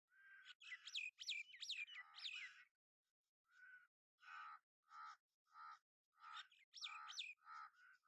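Jungle babblers calling: a run of short, harsh, nasal notes repeated about every half second. Sharp squeaky notes that rise and fall are mixed in during the first couple of seconds and again about seven seconds in.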